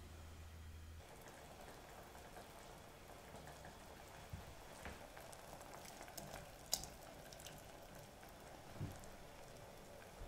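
Meat frying gently in oil in a stainless steel pot, a faint steady sizzle with scattered small pops. There are a few sharper taps as mushrooms are dropped in by hand, the loudest about two-thirds of the way through.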